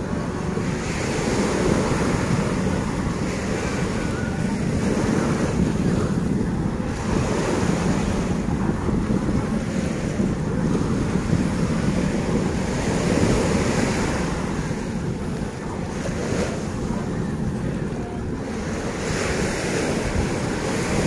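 Small ocean waves breaking and washing up the sand at the water's edge, swelling every two to three seconds, with wind buffeting the microphone.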